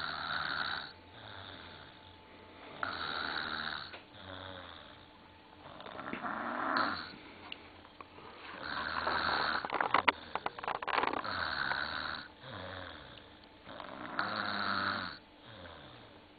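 A three-year-old boy snoring in his sleep, breathing through his open mouth: a loud snore about every three seconds with quieter breaths between. One longer snore near the middle has a crackle in it.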